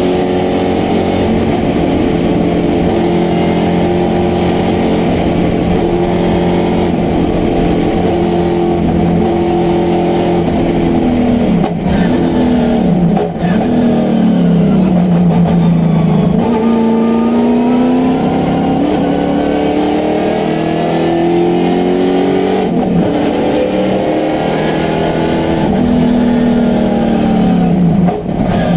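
Holden VK Commodore sports sedan race car's engine heard from inside the cockpit, running hard at high revs. About twelve seconds in it breaks off briefly twice and the revs fall as the car brakes hard from high speed and shifts down. The revs then rise and fall again as it accelerates, with another short break near the end at a gear change.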